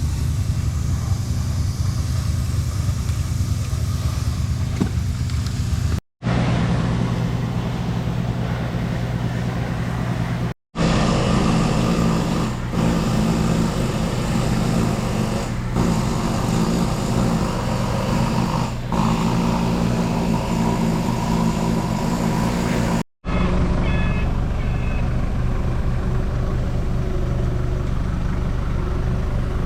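Mini excavator engine running steadily, with three brief dropouts where the sound cuts off and resumes.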